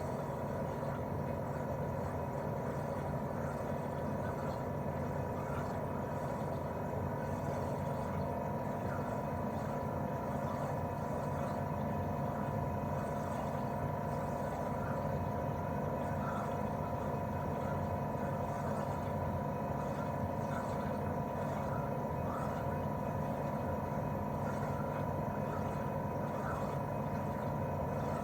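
Daikin R28RMV mini-split outdoor unit running steadily in cooling mode: its propeller fan and inverter-driven twin-cylinder swing compressor give a steady hum with a thin steady whine above it.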